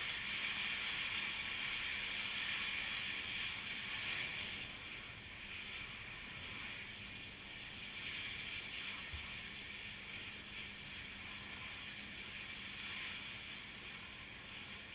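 Large flash fire burning with a steady rushing noise, loudest in the first four seconds, then fading gradually as the flames die down.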